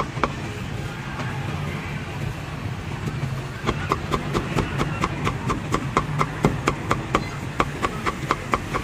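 Heavy cleaver chopping on a thick round wooden chopping block: a fast run of sharp knocks, several a second, starting about three and a half seconds in, over a steady low traffic hum.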